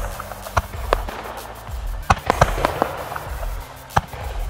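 Fireworks display going off: a rapid string of sharp bangs and crackles over a low rumble, busiest around two seconds in, with another loud bang near the end.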